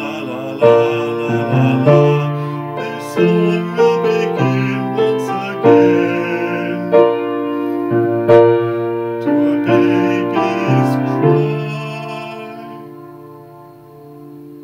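Piano playing the slow instrumental ending of a ballad: a run of struck chords, the last one struck about eleven seconds in and held, fading away.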